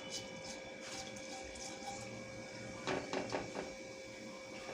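Cumin seeds crackling in hot ghee in a pan: scattered small pops over a low hiss, with a short burst of louder crackles about three seconds in.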